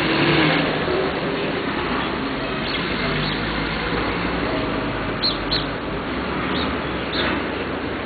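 Steady hum of street traffic with a few short bird chirps, two of them close together about five seconds in.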